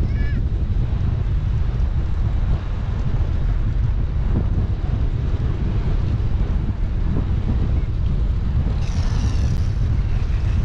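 Wind buffeting the microphone of a bicycle-mounted GoPro while riding, a steady loud low rumble. A brief faint high-pitched call or squeal comes through about nine seconds in.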